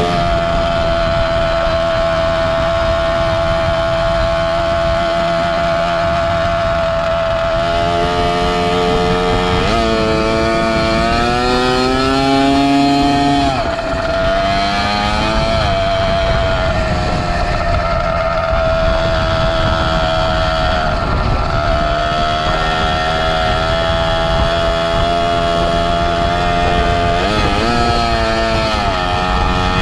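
Two-stroke Zeda 80 motorized-bicycle engine running under way, its pitch climbing under throttle about a third of the way in, falling off sharply, then climbing again near the end, over low rumbling wind and road noise.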